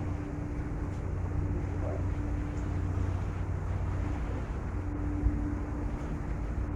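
Staten Island ferry's engines running with a steady low hum over wind and water noise. There is a single brief thump about five seconds in.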